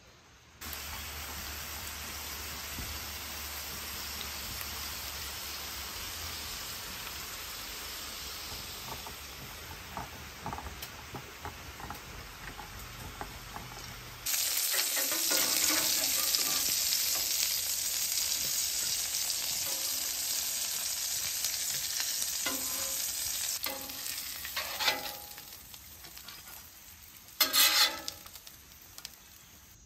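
Bacon and sausage patties sizzling on a flat-top griddle, a steady hiss that gets louder about halfway through. Near the end there are a few sharp clicks and scrapes of a metal spatula on the griddle.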